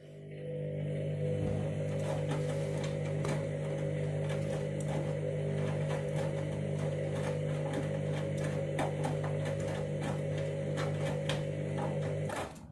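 Candy washing machine running mid-cycle: a steady motor hum with irregular clicks and taps over it. It swells in over the first second and cuts off suddenly near the end.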